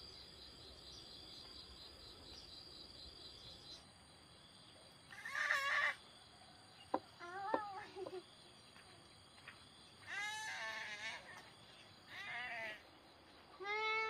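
Goats bleating, about five wavering calls spread over the second half. A steady high insect drone runs through the first few seconds.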